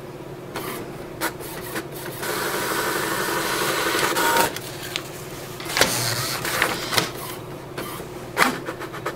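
HP OfficeJet mobile inkjet printer printing a page: a few clicks as it takes up the sheet, then a steady motor whir as the paper feeds through and out, with scattered clicks and knocks afterwards.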